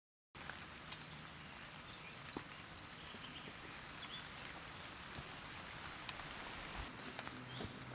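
Quiet woodland ambience cutting in about a third of a second in: a steady faint hiss with scattered small ticks and a few faint, short high chirps.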